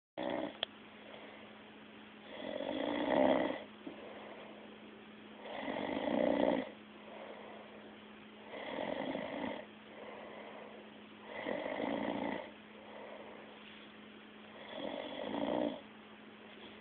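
A person snoring, five snores about three seconds apart, each building over about a second and then stopping abruptly.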